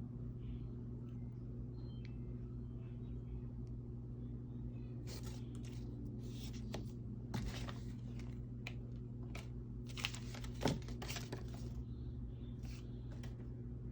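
Faint scattered crinkling and rustling of Mini Brands capsule packaging being handled, with one sharper tap about three-quarters of the way in, over a steady low hum.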